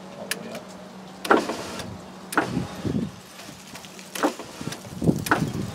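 Plastic moisture-barrier sheet on a truck door crinkling in several short rustles as hands press and smooth it back onto the door.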